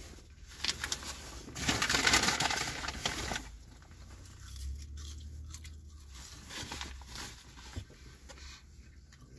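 Crinkling and rustling of a foil-lined fast-food sandwich bag being handled, loudest for a couple of seconds near the start, then fainter scattered rustles.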